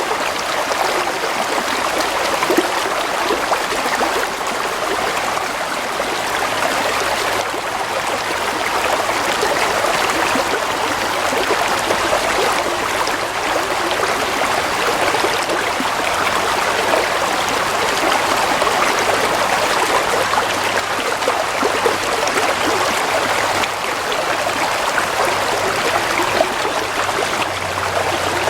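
A stream of water flowing steadily, babbling and trickling.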